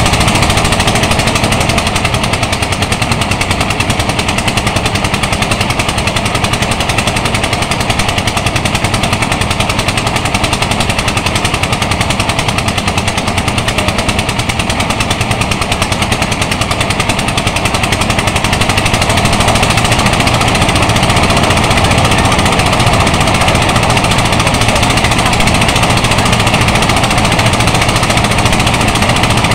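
Portable rice thresher running under load, its small engine and spinning threshing drum making a loud, steady mechanical noise with a fast even beat, as bundles of rice stalks are fed in.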